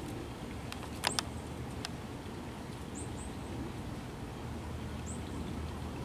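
Pileated woodpecker pecking at a hole in a tree trunk: a few sharp, irregular knocks in the first two seconds, the loudest pair about a second in. Faint, short, high chirps of a small bird come about three and five seconds in.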